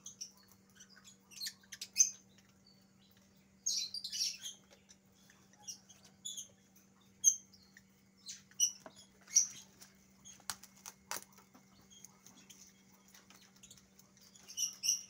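Rabbits feeding on fresh leaves: irregular rustling and crunching of foliage, mixed with scattered short, high bird chirps.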